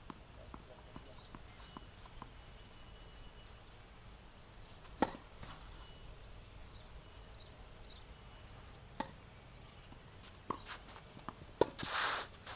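Tennis ball knocks: single sharp hits a few seconds apart, growing more frequent toward the end as the server bounces the ball and begins his serve. The loudest knock comes about a second before the end, followed by a short breathy rush.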